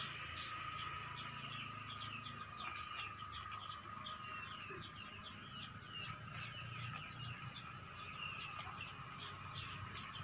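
Small birds chirping, many short falling notes repeated over and over, over a steady thin high tone.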